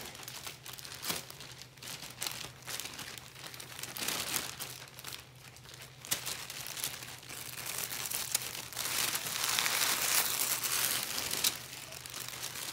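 Green Perch kitchen paper crinkling and rustling as a paper-wrapped fish is handled, with irregular crackles throughout. A denser, louder stretch of crinkling comes near the end.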